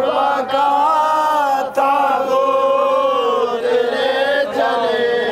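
A marsiya, an elegy for the martyrs of Karbala, chanted in long-held, slowly wavering notes without instruments.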